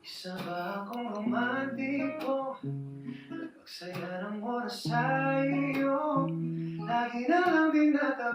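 A male singer sings a ballad over strummed acoustic guitar in a stripped-down live arrangement.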